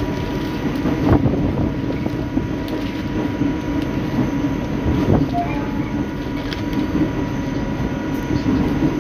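Suburban local train carriage running, heard from inside: a steady rumble of wheels on rails, with short clanks about one second in and again about five seconds in.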